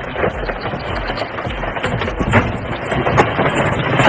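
Heavy machinery running, with scattered sharp knocks and cracks, growing slowly louder.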